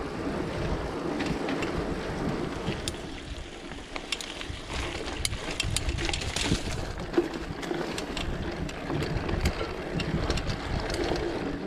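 Wind rushing over an action camera's microphone while a mountain bike is ridden, with a steady low rumble of tyre noise and scattered sharp clicks from the bike.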